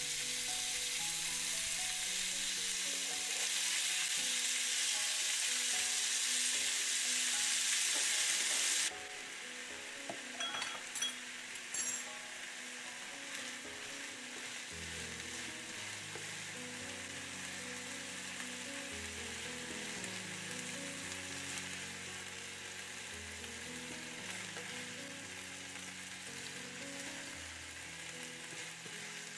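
Strips of beef sizzling in hot oil in a frying pan as they are turned with tongs. The sizzle is loud at first and drops suddenly to a quieter level about nine seconds in, with a few brief clicks soon after, and soft background music plays underneath.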